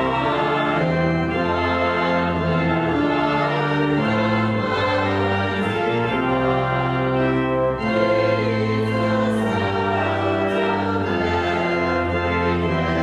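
Church organ playing slow, sustained chords, the notes held steady and changing in steps.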